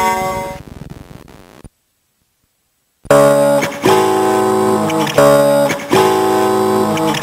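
iCat music toy's built-in electronic tune: one tune fades out in the first second and a half, then after a short silence a new tune starts about three seconds in, with sustained bright notes in short repeated phrases.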